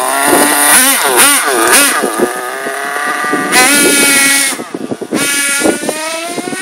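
Redcat Racing RC car's small gas engine at high revs: a few quick throttle blips, then a long climb in pitch as the car accelerates away. The revs drop off sharply about two-thirds of the way through, then wind up again.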